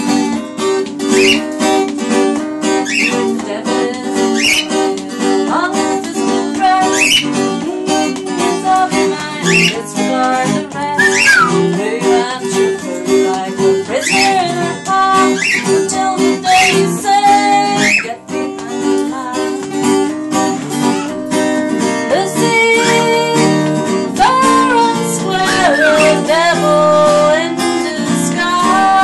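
Acoustic guitar strummed in a steady rhythm, with a cockatiel whistling along over it in short rising chirps and some held notes.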